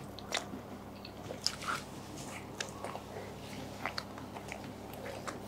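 Faint close-miked eating sounds: biting and chewing samosas, with scattered small wet clicks and smacks.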